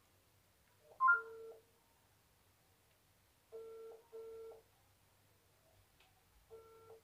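Telephone ringback tone heard over a phone's loudspeaker while a call is placed: the double ring, two short tones in quick succession, repeating about every three seconds. The first ring, about a second in, is the loudest.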